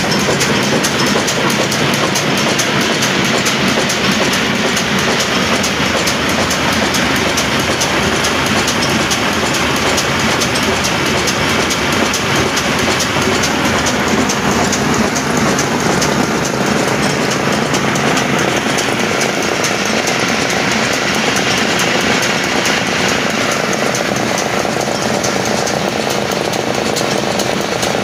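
Locally made Ruston Hornsby-type horizontal diesel engine running steadily, driving the flat belts and line-shaft pulleys of a flour mill. The engine and the running belts make a loud, even clatter.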